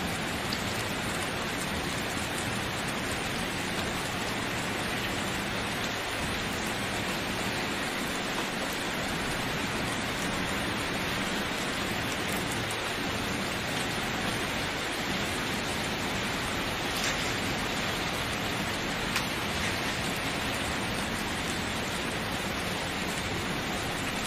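Steady rain falling, an even hiss, with a couple of faint single drop ticks in the second half.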